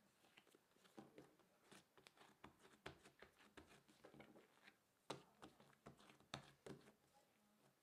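Faint, irregular soft pats and taps of hands pressing bagel dough flat on a silicone baking mat, with a couple of sharper taps in the second half.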